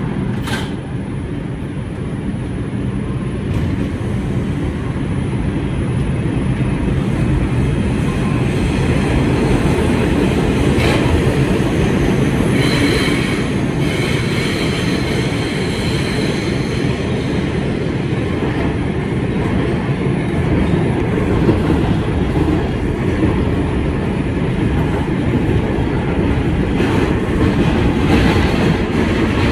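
2001 Bombardier R142 subway car running through the tunnel, heard from inside the car: a steady rumble of wheels on rail, with a faint high wheel squeal briefly around the middle.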